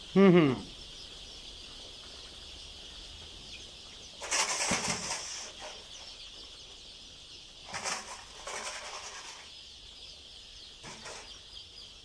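Massed peeping of thousands of day-old chicks in a brooding shed, a steady high chirping throughout. A short loud falling cry comes right at the start, and bursts of rustling and wing-flapping come about four seconds in and again around eight, nine and eleven seconds.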